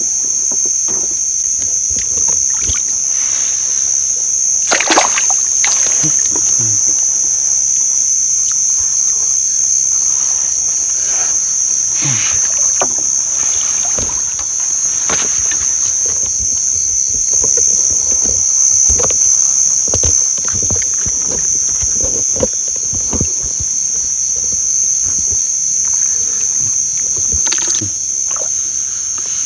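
Steady high-pitched chorus of night insects, over water sloshing and splashing as someone moves through shallow water; a few sharper splashes or knocks stand out, about five seconds in, around twelve and fifteen seconds in, and near the end.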